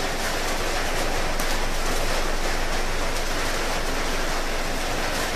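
Steady sizzling of a sauce cooking in a hot wok.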